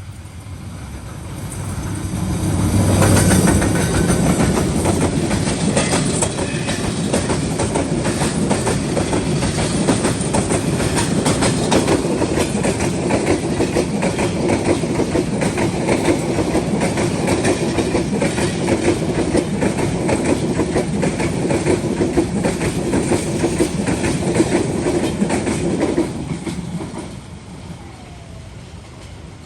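Intercity passenger train passing close by at speed. It is loudest about three seconds in, then a long steady clatter of wheels over rail joints runs for over twenty seconds and drops away sharply near the end as the last coach goes by.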